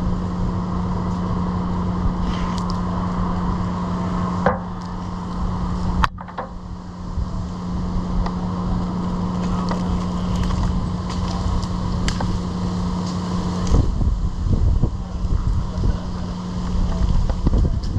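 An engine running steadily at one pitch over low rumbling noise. It drops out briefly about six seconds in and fades under the rumble near the end.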